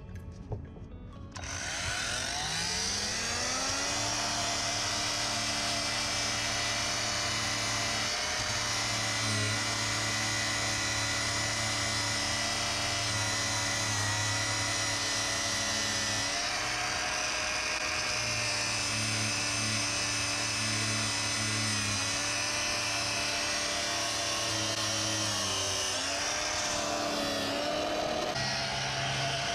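Cordless angle grinder with a wire brush spinning up about a second and a half in, its whine rising, then running steadily as it scrubs rust off a car's steel underbody, its pitch dipping briefly several times under load.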